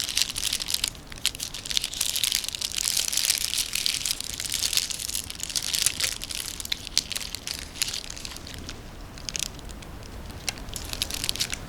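Close-miked crinkling and crackling from a snack being handled: the wrapper opened or the food crunched. The crackle is dense for the first half or so, then thins to scattered clicks.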